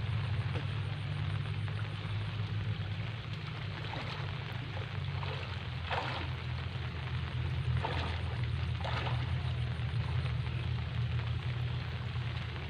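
Water splashing as a swimmer kicks his legs hard at the lake surface to drive fish toward a hand net. There are three short splashes in the second half, over a steady low rumble.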